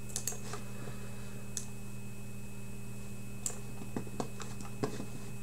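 A few scattered light clicks and ticks over a steady low electrical hum.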